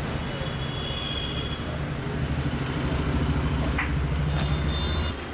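Steady low mechanical rumble, like a running engine, with a fine rapid flutter; it drops off abruptly near the end.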